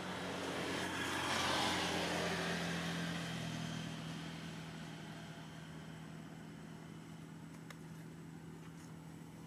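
A motor vehicle passing: an engine hum under a swell of noise that is loudest about a second and a half in, then fades slowly.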